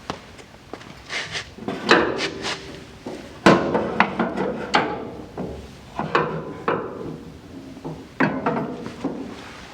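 Metal knocks and clanks in several short clusters as a steering shaft with universal joints is worked through the car's firewall and bumps against the chassis.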